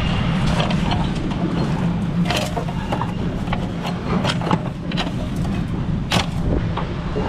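A diesel truck engine idling with a steady low hum, with sharp metallic clinks and knocks every second or so, the loudest near the end, as the load chains are handled.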